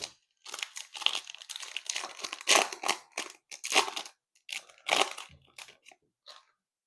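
Foil trading card pack wrapper being torn open and crinkled in the hands, a dense run of irregular crackles that thins out after about five seconds.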